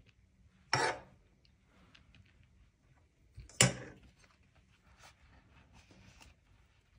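A metal spoon clanks twice against the pan of samosa filling, about a second in and again just past halfway, each clank ringing briefly. Faint rustles of the pastry sheets being handled come between.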